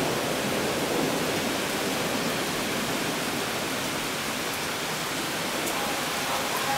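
Heavy summer rain falling in a steady downpour, an even hiss.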